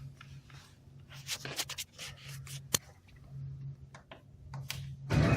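Vending machine humming steadily after a selection is keyed in, with scattered clicks and rubbing. There is a sharp click a little before the three-second mark and a louder clatter near the end.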